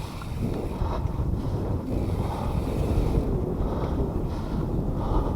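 Wind buffeting a cheap action camera's microphone on a fast mountain-bike ride: a steady low rumble. The rider's heavy breathing comes through in soft swells about every second and a half.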